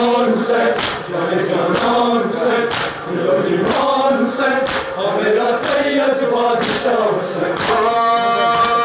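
A crowd of men chanting a Shia nauha (Muharram lament) in unison, with rhythmic chest-beating (matam): palms striking chests about twice a second. Near the end a sung note is held.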